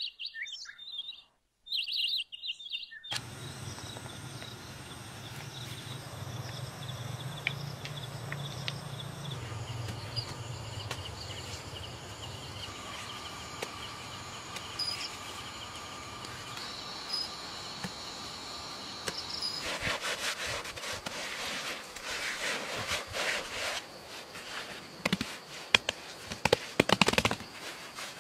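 Outdoor ambience of birds and insects chirping steadily, after a brief dropout at the start. A low hum sits under it for the first several seconds, and in the last third comes a run of irregular sharp clicks and knocks.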